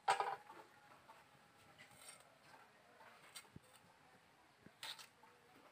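Flat sim bean pods being sliced against the upright blade of a boti: a few short, crisp cutting snips, one at the start, one about three and a half seconds in and one near the end.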